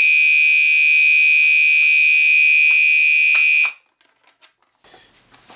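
Gentex Commander 3 fire alarm horn sounding a steady, continuous electronic tone with no pulsing, set by its dip switches to continuous. It cuts off suddenly a little over three and a half seconds in, followed by a few faint clicks.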